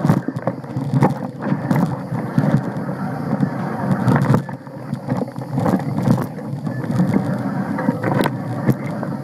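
Mountain bike descending a rough dirt trail: a continuous rumble of tyres on dirt and stones and wind on the microphone, broken by frequent sharp knocks and rattles from the bike jolting over the ground.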